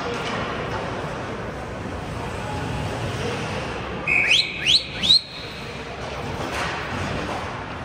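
Three short, sharp whistles about four seconds in, each sliding up in pitch, over steady background arena noise.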